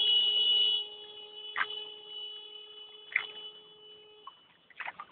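A steady pitched tone with overtones, held without change in pitch: loud for about the first second, then fainter, stopping about four seconds in.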